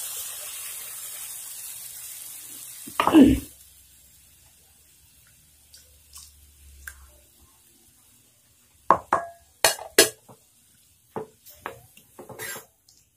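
Coconut milk hissing in a hot pan of fried chicken for the first few seconds, then a single loud thump. Near the end, a wooden spatula knocks and scrapes against the pan several times as the stew is stirred.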